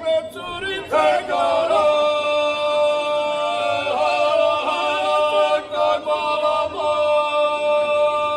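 Mixed folk vocal group of men and women singing together on stage, holding long sustained notes in chorus. A new phrase starts about a second in.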